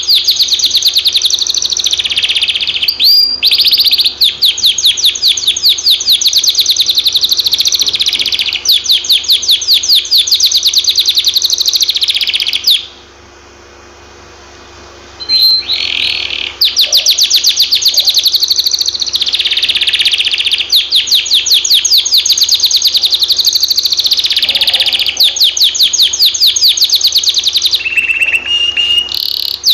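Canary singing: long phrases of very rapid, high repeated trills, broken by a pause of about two seconds midway.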